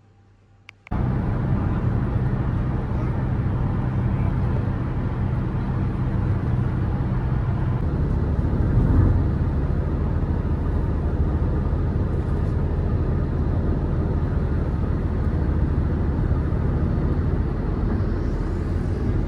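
Steady engine and road noise heard from inside a moving vehicle, a low rumble with a steady engine hum, coming in suddenly about a second in.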